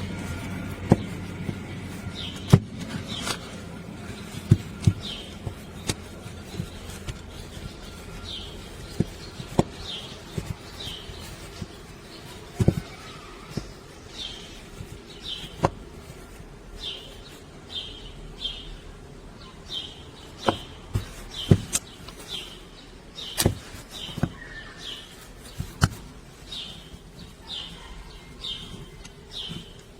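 Scattered sharp clicks and knocks, like hard parts being handled, with a bird's short falling chirps repeating in runs, more often in the second half.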